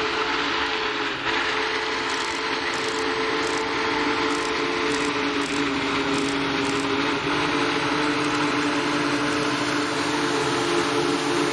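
Union Pacific Big Boy 4014's train running, a steady low chord of tones over a continuous rush of noise, with a run of regular light ticks between about two and seven seconds in.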